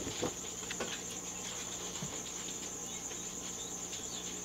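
Paper rustling as the pages of an old paperback book are opened and turned, a few faint rustles in the first second, over a steady high-pitched drone and a low hum in the background.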